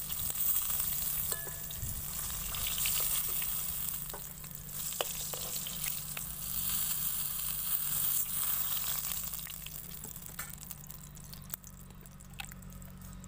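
Whole pointed gourds (potol) sizzling in hot oil in a metal kadai as a spatula lifts them out, with a few sharp clinks and scrapes of the spatula against the pan. The sizzle thins out near the end as the pan empties.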